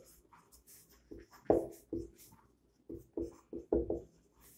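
Marker pen squeaking on a whiteboard as words are written, about a dozen short strokes in a row.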